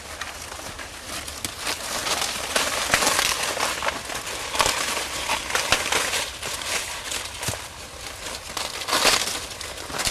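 Dry corn stalks and leaves rustling and crackling as they are pushed through and handled, with sharp snaps and crackles every so often.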